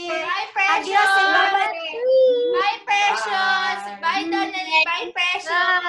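A young child singing in a high voice over a video call, in short held and gliding phrases with brief breaks.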